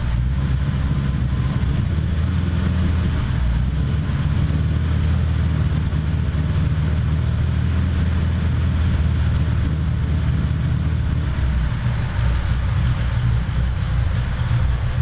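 Dodge truck's carbureted eight-cylinder engine idling steadily, running on an MSD 6AL-2 ignition with the distributor's advance locked out, while the base timing is set to 36 degrees.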